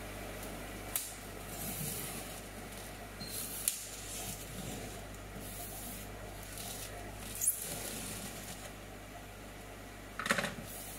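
Scissor blade slitting packing tape along the seam of a polystyrene shipping box, in several short scratchy strokes. A cluster of knocks near the end as the box is shifted on the counter.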